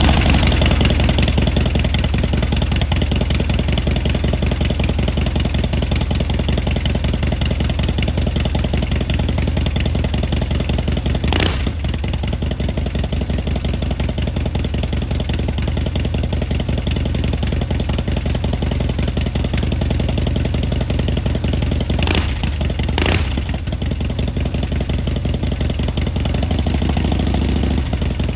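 Harley-Davidson Softail's Milwaukee-Eight 107 V-twin running through a Vance & Hines full exhaust system, idling steadily with a deep, even pulse. Brief throttle blips break in about eleven seconds in and twice in quick succession about twenty-two seconds in.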